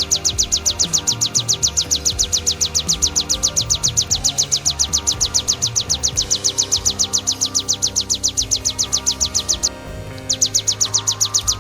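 Ciblek (prinia) song: a fast, even trill of high notes, breaking off briefly about ten seconds in and then starting again.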